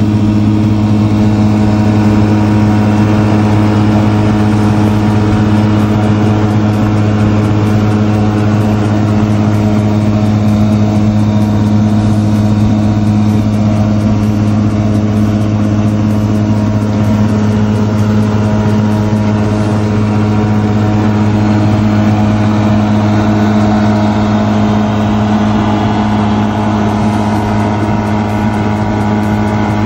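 Honda 9.9 hp four-stroke outboard motor running steadily at a constant speed in a water-filled test tank, being broken in.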